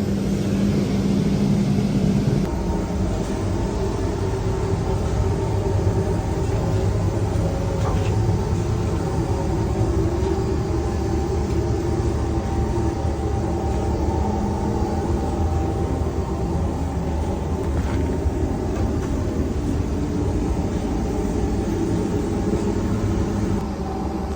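An engine running steadily, its note changing about two and a half seconds in.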